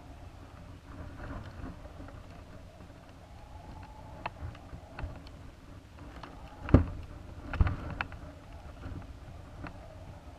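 Onboard camera and payload box of a high-altitude balloon creaking and knocking as it swings and turns: a low rumble with scattered clicks, the loudest sharp knock about two-thirds of the way in, followed by a few more within the next second.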